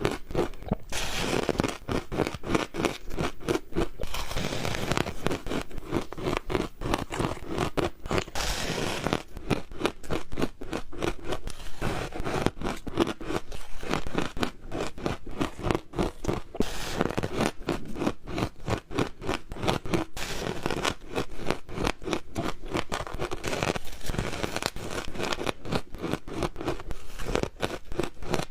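Ice being crunched and chewed in the mouth: a dense, rapid run of crisp crackles.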